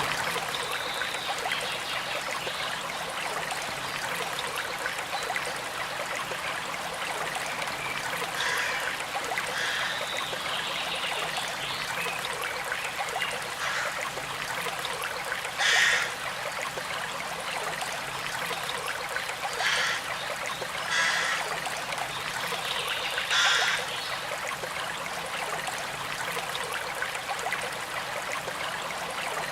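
River water flowing and trickling steadily, with a few brief louder splashes in the second half.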